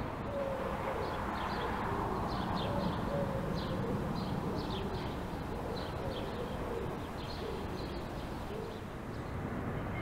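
Steady low rumble of city traffic, with small birds chirping in short repeated calls over it and low cooing calls beneath the chirps.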